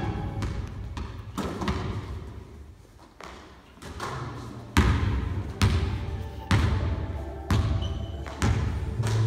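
Basketball bouncing on a gym floor, each bounce a sharp thud that echoes in the hall, coming about once a second through the second half.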